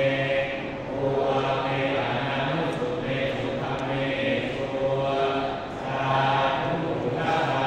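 Thai Buddhist monks chanting together on a steady low pitch, with short pauses for breath, the chant of an amulet consecration rite.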